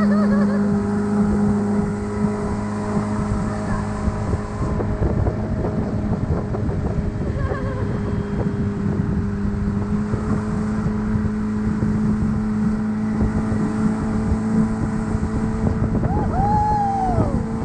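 Motorboat engine running steadily at speed while towing a rider on a rope, with a constant hum over water and wind rush on the microphone.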